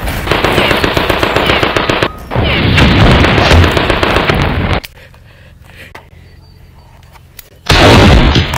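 Machine-gun fire in long rapid bursts, a short break about two seconds in, stopping about five seconds in; after a quieter few seconds, loud firing starts again near the end.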